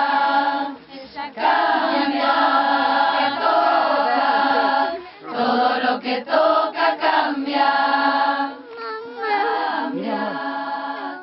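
A group of women's voices singing together in long, held phrases, breaking briefly between lines about a second in, around five seconds in and near nine seconds.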